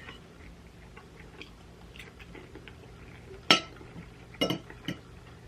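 Eating at a table: quiet chewing, with a fork or other utensil clinking against a dish a few times in the second half, the loudest a sharp clink about three and a half seconds in.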